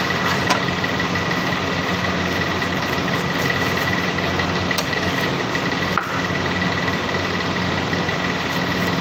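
Steady machinery drone with low hum and a thin high whine running through it. A knife cutting a pineapple taps the cutting board sharply about half a second in and again around six seconds.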